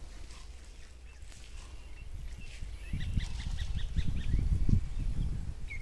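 A bird calling in a quick series of short, high notes, about five a second, which starts about halfway through. A low rumble runs underneath and swells to its loudest near the end.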